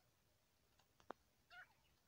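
Faint, short, soft call of a grey francolin about one and a half seconds in, after a few small clicks a little earlier.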